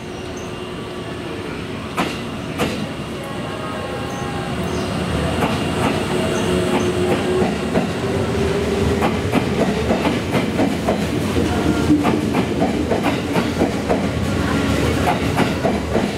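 JR East 651 series electric train pulling out of the platform and gathering speed. There are two sharp knocks about two seconds in, and the motor hum rises in pitch. Wheels then click over the rail joints faster and faster as the cars pass, growing louder throughout.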